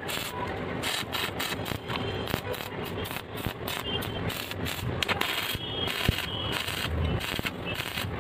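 Stick-welding arc crackling and sputtering irregularly as the electrode welds ribbed rebar to a steel plate.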